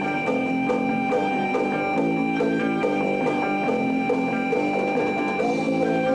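Live rock band playing on stage, with electric guitars and a drum kit keeping a steady beat.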